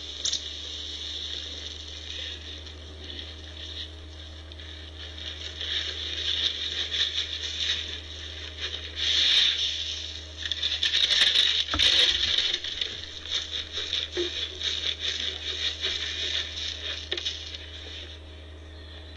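Birdseed poured from plastic jugs and scattered onto snowy ground, a dense pattering that grows heavier in the middle, with a single knock about twelve seconds in.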